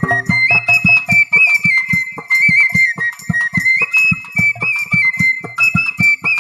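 Bengali bamboo flute (bashi) playing an ornamented folk melody in high notes, over a steady hand-drum beat of about four strokes a second.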